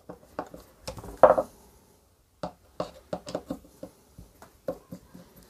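Light, irregular clicks and knocks of a tool and hands working the screw that holds the pulley of a chainsaw's plastic recoil starter, with one louder knock about a second in and a short pause around the middle.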